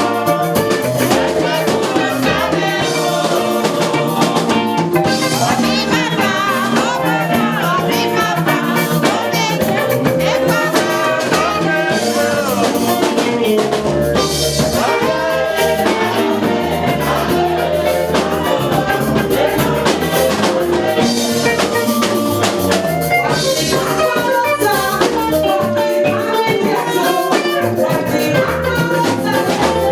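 Live worship music with singing over keyboard and drums, a steady beat running throughout.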